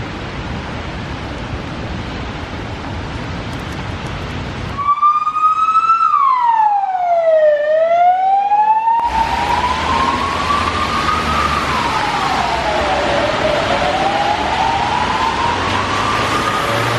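Emergency vehicle siren wailing, its pitch slowly falling and rising over a few seconds per sweep, starting about five seconds in over steady street traffic noise.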